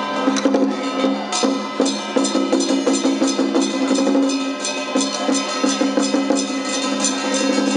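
Temple-procession music from a traditional percussion ensemble: drums and cymbals striking a quick, steady rhythm over held low pitched tones.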